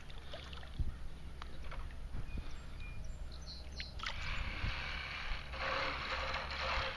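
Hooked largemouth bass thrashing and splashing at the water's surface on a tight line, the splashing thickening into a steadier wash about four seconds in. A low wind rumble on the microphone runs underneath.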